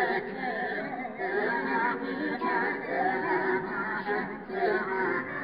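Background music with high, electronic-sounding sung vocals.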